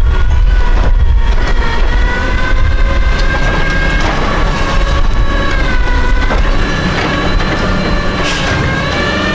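Automated side-loader garbage truck's engine running under load, with its hydraulic pump whining, the pitch rising and falling, as the arm lifts a cart over the hopper, dumps it and sets it back down. A few short clatters come through over the whine.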